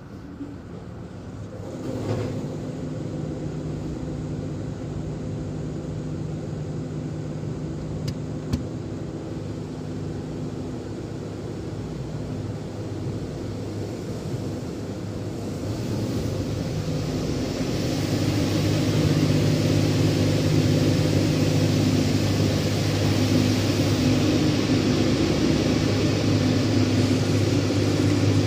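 Automatic tunnel car wash machinery heard from inside the car: a steady mechanical hum with several held tones, stepping up about two seconds in. From about halfway it grows louder and a strong hiss of water spraying onto the car joins it.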